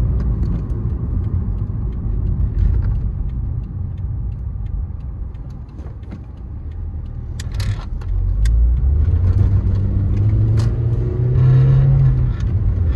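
2006 Scion Xa's 1.5-litre 1NZ-FE four-cylinder engine and road noise heard from inside the cabin, dying down as the car slows to a stop about six seconds in. The engine then revs up as the car pulls away, its pitch rising for several seconds.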